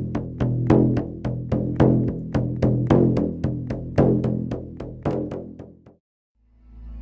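Background music: short notes with sharp attacks repeat in a quick, steady pulse of several a second and stop about six seconds in. After a brief gap, a soft sustained chord swells in near the end.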